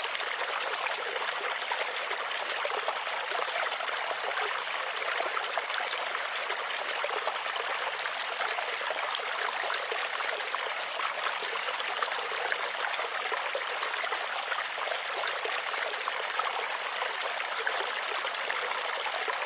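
Steady, unchanging sound of flowing, trickling stream water.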